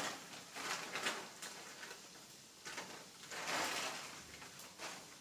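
Faint, scattered rustles and soft knocks of grocery packets being handled and put away, the longest rustle a little past halfway through.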